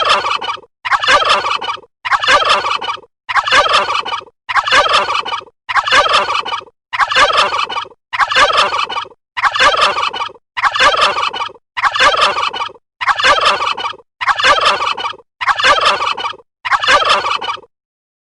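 A bird's call, about a second long and rattling, repeated over and over at about one per second, and stopping near the end.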